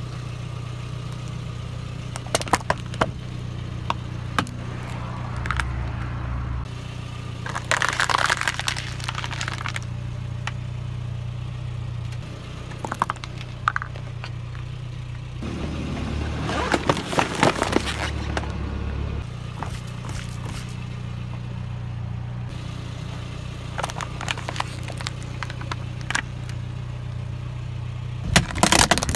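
A car tyre rolling over hard plastic objects such as flower pots, pill bottles and a blister pack, cracking and crunching them in several separate bursts of sharp cracks. The car's engine idles steadily underneath.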